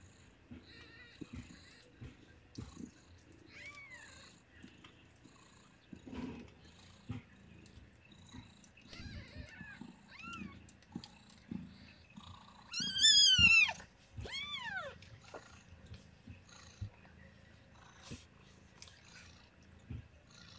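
Newborn kittens giving short, high, arching squeaks several times, the loudest about 13 seconds in, as an adult cat licks them to make them toilet. A cat purrs softly underneath.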